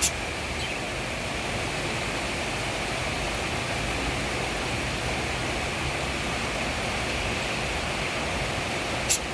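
Steady hiss of heavy rain falling. A sharp click comes right at the start and another near the end.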